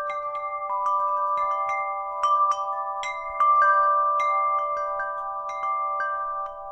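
Background music: a slow melody of struck, bell-like mallet-percussion notes, each ringing on and overlapping the next.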